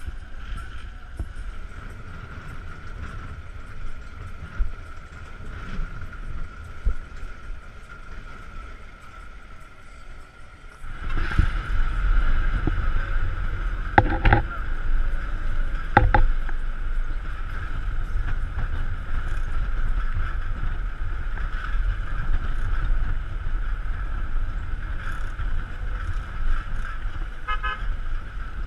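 Moving bus: engine and road noise with a steady drone. About 11 s in it turns louder, with a heavy low rumble and wind on the microphone as the sound comes from outside the bus window. Two sharp knocks come a couple of seconds apart.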